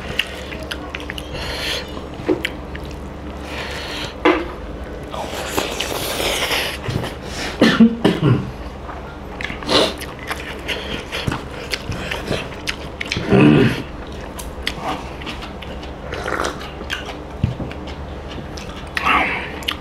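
Close-up eating sounds of people eating rice and chicken curry by hand: chewing, mouth noises and the squish of rice being mixed between fingers, broken by a few short louder bursts.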